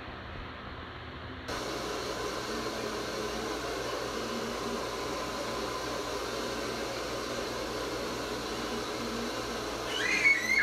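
Two hand-held hair dryers blowing steadily on long hair, the sound stepping up louder about a second and a half in. A brief higher-pitched sound cuts in near the end.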